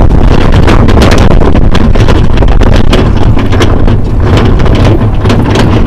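Wind buffeting the microphone over the rumble of a rubber-tyred sled-dog training cart rolling on gravel, with many short rattles and clicks from the cart and stones.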